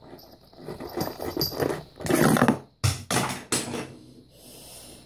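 Plush toy cat's fur rubbing and brushing against the phone's microphone as the toy is handled up close, with three sharp knocks or clicks about three seconds in.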